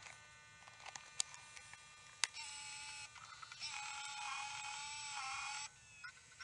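Quiet electronic music: steady synth tones with a few sharp clicks, then a louder buzzing synth with a wavering pitch from about two seconds in, cutting out briefly near the end.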